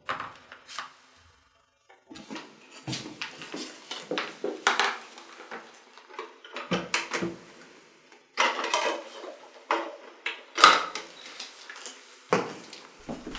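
Handling noise of books and plastic CD cases being moved and set down, and a disc being taken from its case and loaded into a portable CD player: a string of irregular clicks, clacks and rustles with short pauses.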